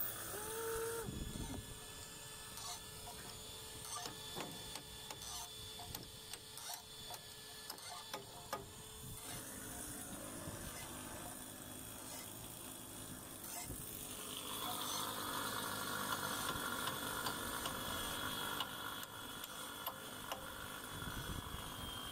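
Scattered metallic clicks and taps from spanner work on the bolts of a ship windlass's brake band, thinning out after about nine seconds. About two-thirds of the way in, a steady high whine comes in and holds.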